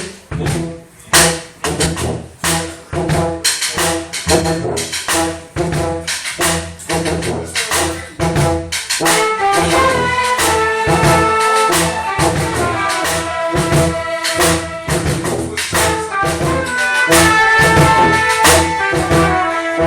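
Live band playing a run-through at a sound check: a steady beat of drum hits, with horns coming in about halfway on held notes that build into full chords.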